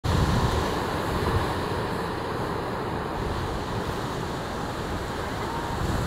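Steady wash of ocean surf, with wind rumbling on the microphone.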